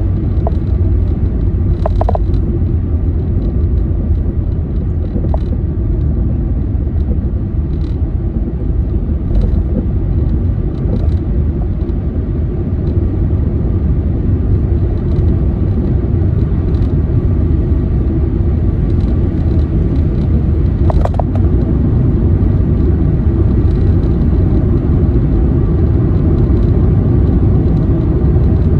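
Steady low rumble of a car on the move, engine and road noise.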